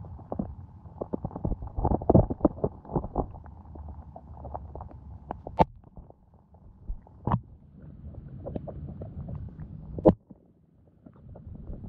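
Muffled underwater sound heard through a GoPro's waterproof housing: a low murmur of moving water with a scatter of clicks and knocks, thickest about two seconds in, and a few sharper, louder clicks later on as fish crowd and bump around the camera.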